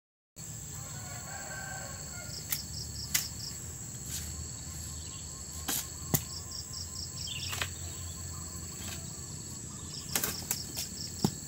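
Insects trilling steadily, broken now and then by short pulsed chirps. Over them come a few short, sharp knocks and taps, the loudest about six seconds in and another near the end, from a long pole being jabbed up into a papaya tree to poke down fruit.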